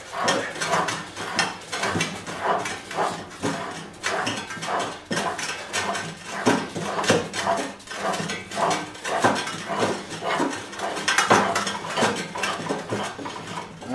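Steel gland nut on a Moffett forklift lift cylinder being unscrewed by hand: a continuous run of short metallic scrapes and clicks as the threads turn, several a second. The nut is spinning off easily once broken loose.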